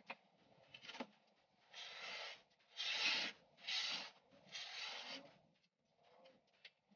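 Four short rough rubbing strokes, each about half a second long, as the foam pieces of the hull are handled and worked, with a couple of light knocks before them.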